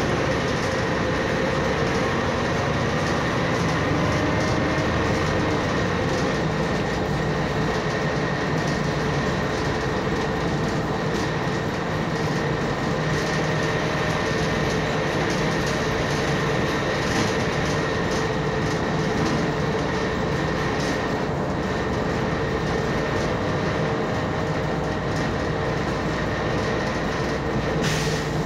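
Steady interior running noise of a Zhong Tong articulated city bus under way: low engine and road rumble with a steady high whine over it.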